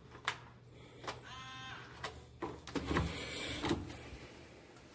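Electronic hotel keycard door lock: the card clicks in and out of the slot, the lock gives a short beep about a second in, then a small motor whirs and the lever handle clacks as the latch releases and the door is unlocked.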